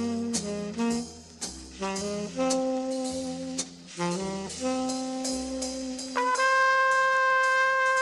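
Late-1950s jazz instrumental from a film soundtrack: a saxophone-led melody in short phrases over a walking bass line and cymbal strokes, ending on a long held note from about six seconds in.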